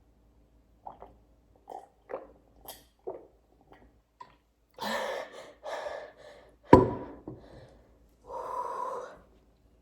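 A person's mouth and throat sounds close to the microphone: a few short clicks, then breaths and gasps, with a sudden louder one a little past the middle and a longer one near the end.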